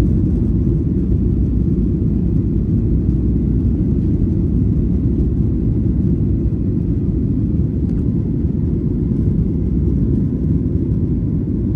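Cabin noise inside a Boeing 737-800 during takeoff and climb-out: a steady low rumble of the CFM56 jet engines and rushing air.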